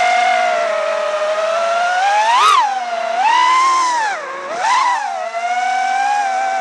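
iFlight Nazgul5 5-inch FPV quadcopter's brushless motors whining, the pitch rising and falling with throttle. There is a sharp climb and fall about two and a half seconds in, a dip and a quick rise near five seconds, and then a steady whine.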